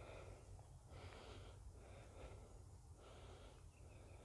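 Faint, rhythmic breathing close to the microphone, about one breath a second.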